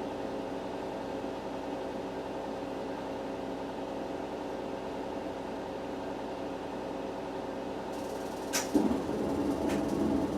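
A steady mechanical hum, like a small motor or fan running. A sharp click comes about eight and a half seconds in, followed by louder rattling noise.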